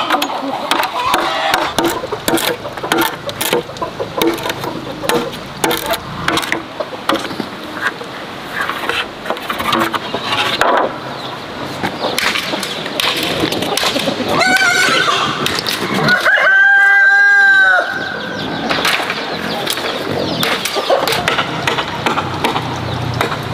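A broad knife chipping and scraping at a split bamboo tube: many short knocks and clicks. Later, a rooster crows, with a short call and then one long crow about sixteen seconds in.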